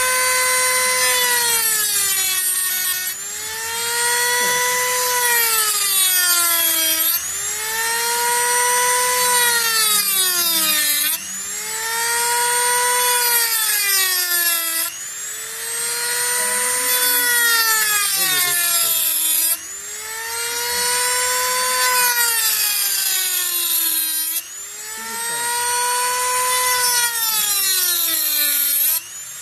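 Handheld rotary tool with a small cut-off disc whining as it cuts through a metal finger ring. Its pitch sags each time the disc is pressed into the ring and climbs back when it is eased off, about seven times, roughly every four seconds.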